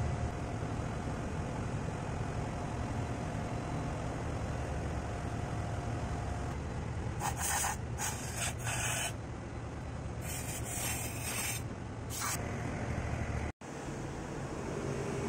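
Compressed-air blow gun giving several short blasts, about five in all starting halfway through, as it blows the dismantled pump housing clean. A steady low machinery hum runs underneath.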